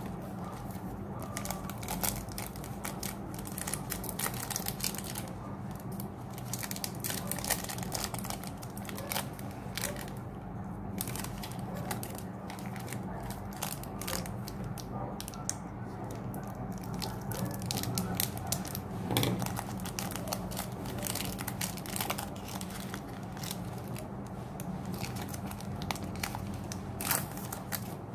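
Crinkling and crackling of Pokémon TCG foil booster-pack wrappers being handled and slit open with a pen-style blade, full of small crackles and clicks. A steady low hum runs underneath.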